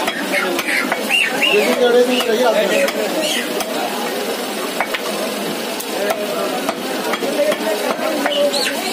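Large curved butcher's knife slicing raw chicken on a wooden stump chopping block, with a few sharp taps of the blade on the wood, over a steady busy background noise.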